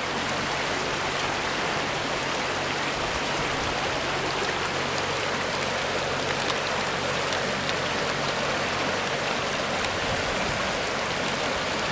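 River water rushing past, a steady, even hiss of flowing water.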